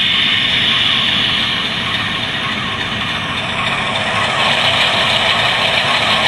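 Tsunami sound decoder in an HO-scale BNSF C44-9W model playing its GE FDL-16 diesel at idle with the air compressor effect, through the model's small speaker: a loud, steady hissing rumble.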